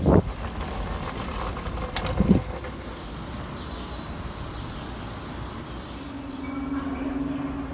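Outdoor traffic noise at an airport terminal kerb: a steady low rumble, with two brief louder noises in the first few seconds and a steady hum that comes in about six seconds in.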